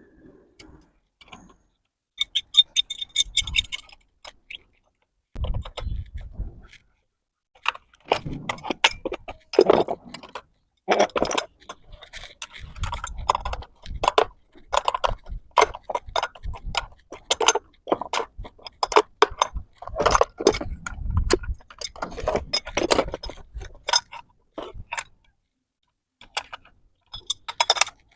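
Metal clinking and clicking of a spanner working on steel flange bolts and nuts as a butterfly valve's flange joint is tightened, in irregular bursts with some dull knocks.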